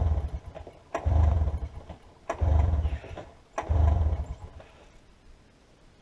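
Recoil pull-start of a cold 1990 Arctic Cat Jag snowmobile's two-stroke engine: four pulls about a second and a half apart, each a sharp snap of the starter followed by a short low chug of the engine turning over without catching.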